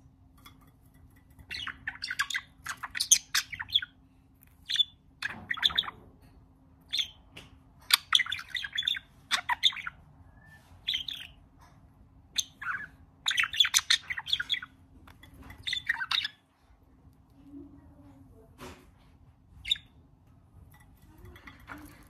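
Budgerigar chirping and chattering in short bursts of rapid high notes, with pauses between bursts, then falling mostly quiet apart from a couple of single calls near the end.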